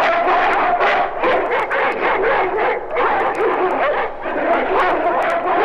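A pack of dogs barking and yelping together in a dense, unbroken chorus.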